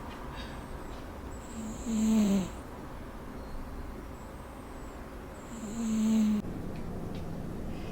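A domestic cat snoring in its sleep: two snores about four seconds apart, each a short note that falls in pitch, with a breathy hiss. A steady low hum takes over near the end.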